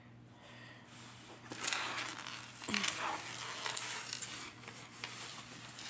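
Plastic protective film on a diamond painting canvas crinkling and rustling in irregular strokes as a corner is peeled up and handled.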